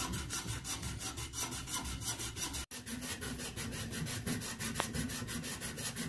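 Hand abrasive scrubbed back and forth on a copper pipe end, fast rasping strokes about six a second, briefly broken off nearly three seconds in: cleaning the copper joint down to bare metal before soldering.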